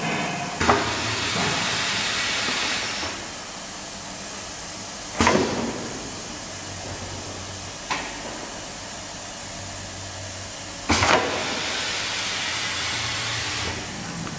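Pillow vacuum packing and pressing machine cycling: four sharp clunks over the stretch, the third one weaker. After the first and the last clunk comes a rush of air noise that lasts two to three seconds, over a steady low running hum.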